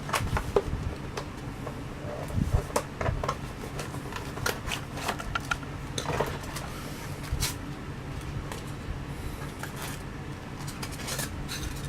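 Diecast model car packaging being handled and pried open by hand: irregular clicks, taps and rustles of plastic and cardboard over a low steady hum.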